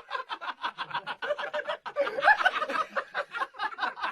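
A person laughing hard in a fast, even run of short breathy bursts.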